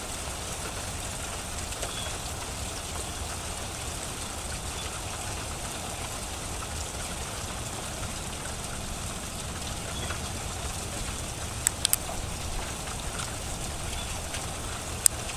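Tiny hailstones falling and landing in a steady hiss, with a few sharp ticks about twelve seconds in and once more near the end.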